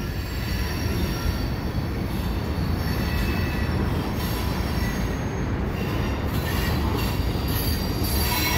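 Freight train of tank cars rolling slowly over a steel girder bridge: a steady low rumble of wheels on rail, with faint high wheel squeals coming and going.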